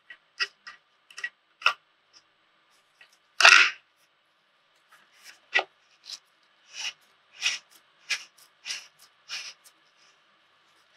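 Plastic clicks and scrapes of a connector being screwed onto the threaded nozzle of a twin-tube polyurea resin cartridge by gloved hands. There is one louder rustle about three and a half seconds in, then a run of short ticks about two a second in the second half.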